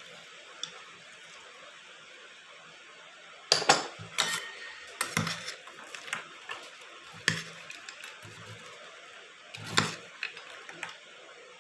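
Spoon clinking and knocking against a bowl or plate as bhel is mixed and served: about a dozen irregular sharp clinks, starting a few seconds in, the loudest near the start of them and again near the end.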